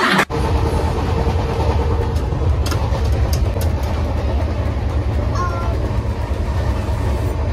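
Steady low rumble of a moving passenger train, heard from inside the coach, with a few faint clicks and a brief high squeak about five and a half seconds in.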